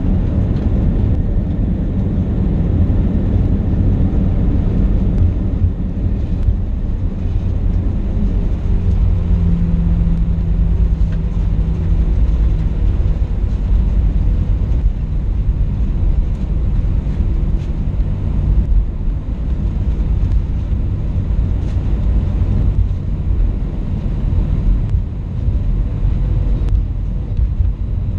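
Airbus A320 cabin noise heard from a window seat while rolling slowly on the ground: a steady, loud low rumble of the jet engines and wheels, with a faint hum that comes and goes in the middle.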